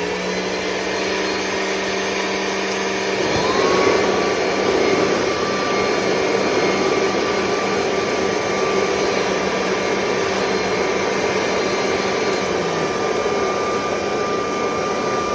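Two vacuum cleaners running at full power, one of them a 1969 Dual Sanitronic 80. One motor is already running, and a second is switched on about three seconds in, spinning up to a higher whine. Both then run steadily together, and one starts to wind down at the very end.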